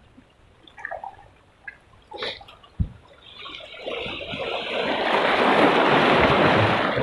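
Seawater washing against shore rocks: quiet small trickles at first, then a wave surge that swells up over the second half and eases near the end. A single soft knock comes just before the surge.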